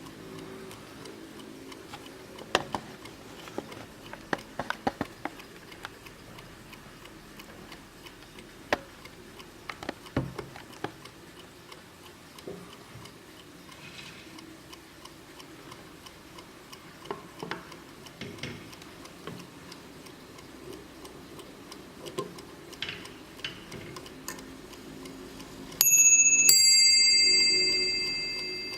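Warmink Dutch mantel clock ticking, with scattered louder clicks. Near the end it strikes its double bell once: a higher note, then a lower one about half a second later, both ringing on and slowly fading.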